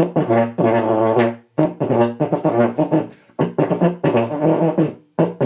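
Oval rotary-valve tenor horn played by a beginner: low notes in short phrases of quickly repeated tongued notes, a drum-like rhythm with brief gaps between phrases. The rhythm does not quite come off.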